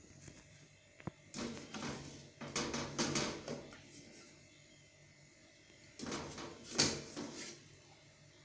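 A plastic sieve scooping boiled aloe vera pieces out of an aluminium pot of water: knocks and scrapes of the sieve against the pot, with water sloshing and dripping. It comes in two spells, one in the first few seconds and one near the end, the sharpest knock in the second.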